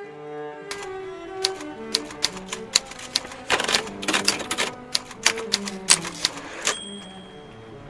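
Brother manual portable typewriter keys being struck in quick, uneven runs of sharp clacks, ending with a single bright ring near the end. Background string music plays underneath.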